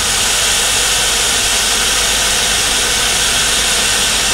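Air-over-hydraulic car lift, converted into a lift table, lowering: air escaping from it in a steady, loud hiss.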